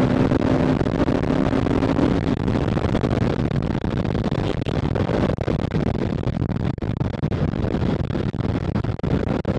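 Bajaj Pulsar RS200's single-cylinder engine pulling hard at high speed during a top-speed run, heard under heavy wind rush on the microphone. A steady engine tone stands out for the first two seconds, then blends into the wind noise.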